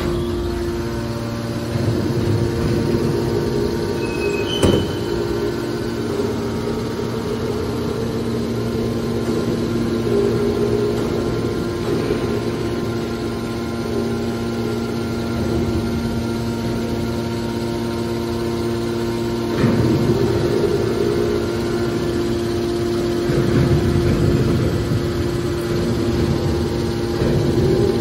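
Metal baler's hydraulic power unit running: the electric motor and hydraulic pump give a steady hum made of several fixed tones. The sound swells briefly a few times, and there is one sharp click about five seconds in.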